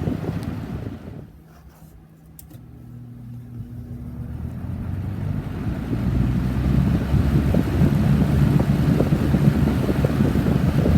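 1984 Kmart Lakewood K-223 box fan running, its air rushing over the microphone. About a second in the rush falls away sharply, with a couple of faint clicks and a low motor hum. The air noise then builds back up steadily over several seconds to full strength.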